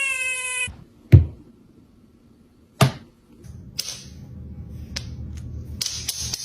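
A cat's long, drawn-out meow, slightly falling in pitch, cuts off under a second in. It is followed by a loud sharp thump about a second in and another near three seconds. Then comes a low rumble with scattered clicks and a hiss late on.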